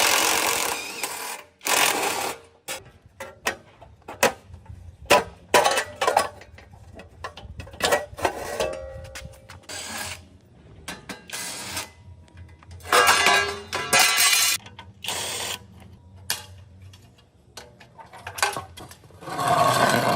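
Workshop tool noise: irregular metal clicks and knocks, broken by several bursts of hissing or grinding noise lasting a second or two, the loudest near the start and end.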